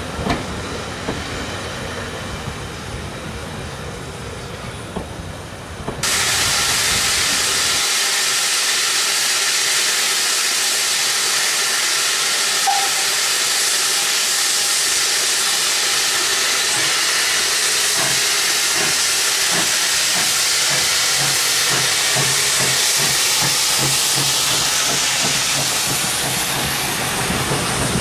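Railway carriages rolling slowly past with a rhythmic clatter of wheels over rail joints. About six seconds in, this gives way abruptly to a loud, steady hiss of steam from the South Eastern Railway O1 class 0-6-0 steam locomotive No.65 standing at the platform.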